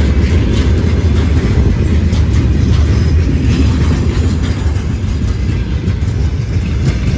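Freight train of open-top gondola wagons rolling past close by: a steady heavy rumble of steel wheels on rail, with irregular clacks as the wheels cross rail joints.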